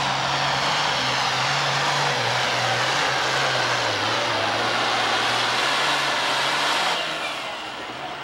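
An Allis-Chalmers D21 super stock pulling tractor's turbocharged diesel running at full power, loud and steady, dragging the weight-transfer sled. About seven seconds in, the pull ends and the engine backs off, the sound dropping as a high whine falls away.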